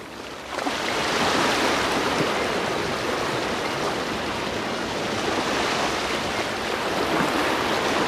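A steady rushing noise with no clear pitch, like surf or running water, swelling in about half a second in and holding steady.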